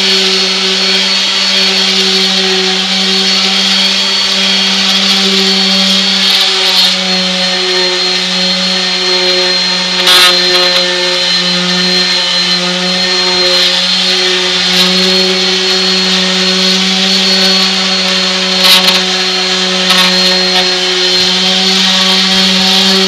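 Electric orbital palm sander running steadily with a constant hum and a high whine, its pad rubbing over weathered wood to knock down fibers raised by power washing. Brief knocks come about ten seconds in and again near nineteen seconds.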